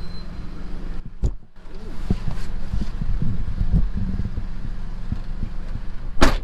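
Steady low hum of traffic and a car engine by the roadside, then, after a short break, irregular muffled bumps and knocks inside a car as people settle in, with one sharp bang near the end.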